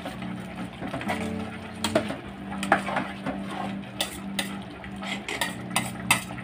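A spatula stirring rice in a metal cooking pot, with irregular clinks and scrapes as it knocks against the pot's sides.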